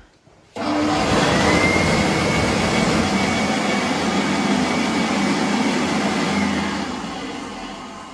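White ALTO push-button warm-air hand dryer starting up suddenly about half a second in and blowing steadily with a faint high whine. Near the end it runs down and the sound slowly fades.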